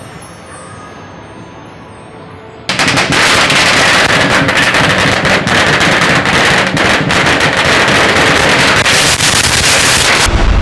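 A long string of firecrackers going off in rapid, continuous crackling. It starts suddenly about three seconds in, runs for about eight seconds and cuts off abruptly.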